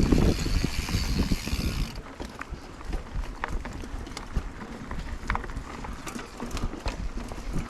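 Mountain bike rolling over a dirt trail: a loud rush with heavy rumble for about the first two seconds that cuts off abruptly, then quieter rolling with scattered clicks and knocks as the bike rattles over bumps.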